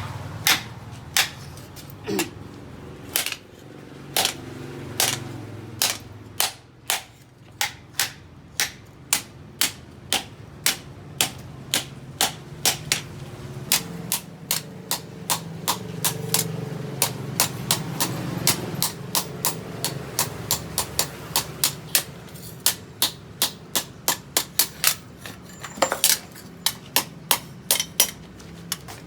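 A hand hammer striking steel on an anvil in a long series of sharp blows. They come about one to two a second at first and quicken to about three a second near the end, over a low steady hum.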